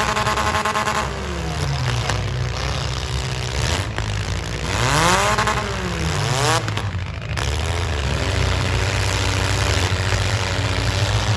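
Demolition derby car engines running with a steady low rumble. One engine's revs fall away about a second in, and another revs up and drops back around five seconds in.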